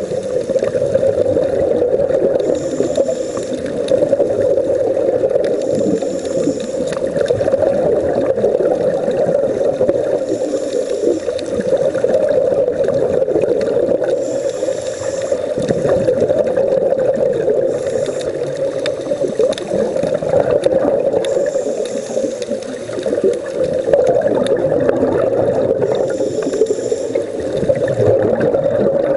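Underwater sound picked up through a camera housing: a steady muffled rushing of water, with short bursts of scuba regulator exhaust bubbles every few seconds as a diver breathes out.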